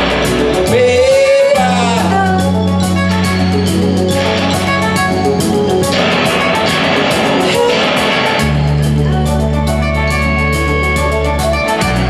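Rock band playing live: drums with a fast, steady ticking cymbal beat under electric guitar and long, held low notes, with a high note sliding upward about a second in.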